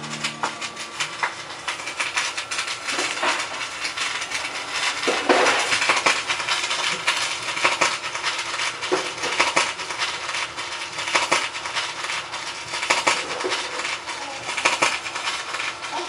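Vinyl record surface crackle with a louder pop recurring about every two seconds, as the stylus runs on after the song ends, typical of the run-out groove on a turntable.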